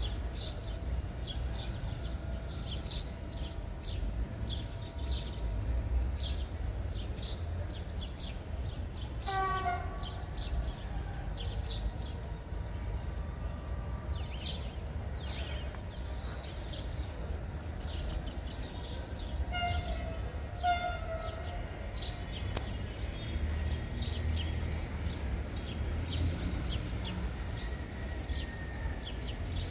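Birds chirping steadily over a low wind rumble on the microphone, while an unseen approaching train sounds short horn blasts in the distance, once about a third of the way in and twice about two-thirds in.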